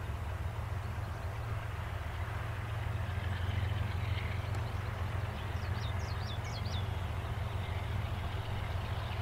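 Distant CN diesel locomotives running, a steady low drone as the freight train comes on slowly. A bird chirps several times about six seconds in.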